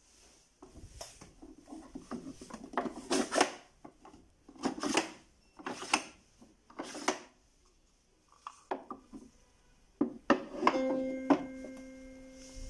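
Tiles of a sliding picture puzzle pushed by hand across the puzzle's tray: a series of short scraping slides with light knocks as the tiles butt against each other. About ten seconds in, as the last tile goes into place, a steady hum starts.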